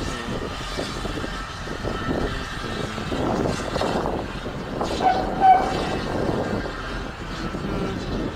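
Peckett 0-4-0 steam locomotive chuffing as it pulls a train away, with a short whistle about five seconds in.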